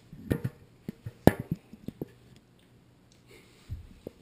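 A run of sharp knocks and taps, the loudest a little over a second in, then a few softer taps near the end: an action camera being handled and shifted about on a bathroom counter.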